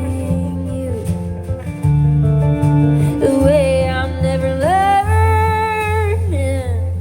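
Song with a singer's voice over acoustic guitar and a steady bass part; the voice holds one long note a little past the middle.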